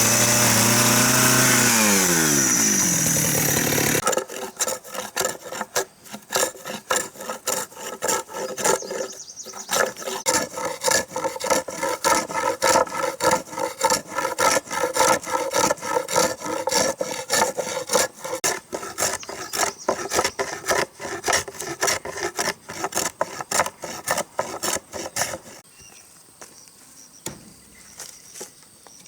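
A power tool runs and winds down in pitch over the first few seconds. Then a hand saw cuts wood in quick, even back-and-forth strokes, which stop near the end, leaving crickets chirping.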